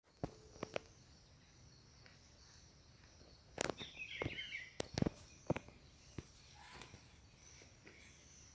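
Footsteps and brush noise in dry leaf litter: scattered sharp crackles and snaps of twigs and leaves, thickest between about three and a half and six seconds in, over a faint steady high hiss.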